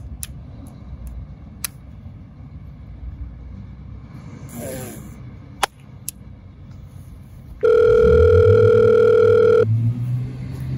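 A mobile phone rings: one loud, steady electronic tone with overtones, lasting about two seconds and cutting off suddenly, near the end. Beneath it is a low traffic rumble, with a few sharp clicks in the first seconds.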